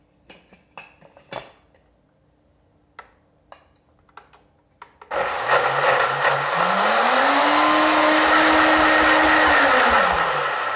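Health Master blender motor churning frozen strawberries and peaches. A few light knocks come first, then about five seconds in the blender starts, rises in pitch to full speed, runs steadily, and winds down near the end.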